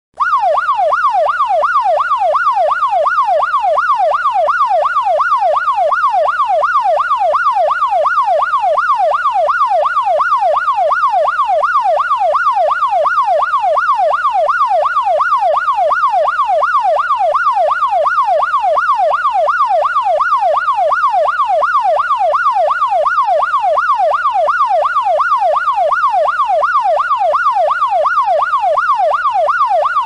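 Police siren in fast yelp mode: a loud tone sweeping rapidly up and down, about one and a half to two times a second, unbroken and unchanging throughout.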